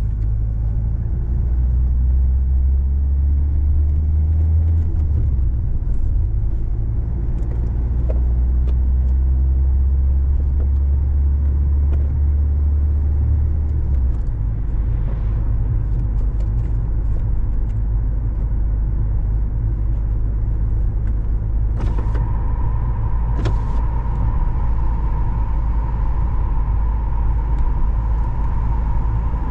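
Car driving: a steady low road-and-engine rumble, heavier for roughly the first half. A steady high hum joins about two-thirds of the way through.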